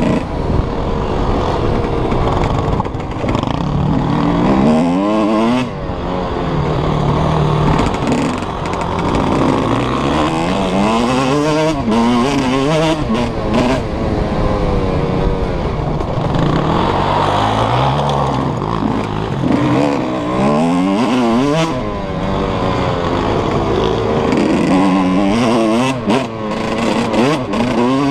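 Suzuki RM 125 two-stroke motocross bike engine at full throttle, its pitch climbing again and again through the gears and falling back between the pulls, with wind noise over the microphone.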